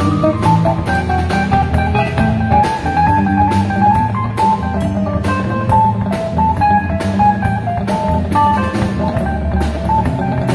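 Live band playing an instrumental passage on electric guitar, electric bass, drum kit and keyboard: a steady drum beat and bass under a lead line of short, quick notes.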